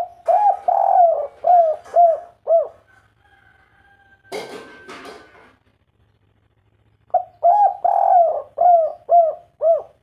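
Spotted dove cooing in the local song type keepers call 'kuk 3': two phrases of about six short arching coo notes each, one at the start and one about seven seconds in. Between them, about four seconds in, comes a brief rustling noise.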